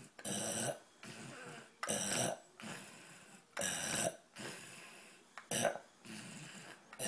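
A man snoring loudly in a steady rhythm: four loud snores about every two seconds, with quieter breaths between.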